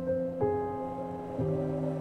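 Slow background music of held keyboard notes, with new notes struck twice.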